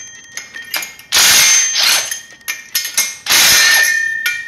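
A ratchet loosening the cylinder head nuts on a two-stroke motorized-bicycle engine: two long runs of ratcheting about two seconds apart, with lighter clicks between.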